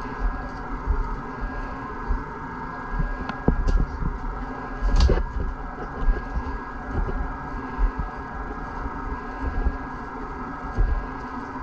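Squeegee strokes spreading wet resin through fibreglass cloth on a surfboard rail: soft scrapes and low rumbling bumps over a steady hum, with one louder swish about five seconds in.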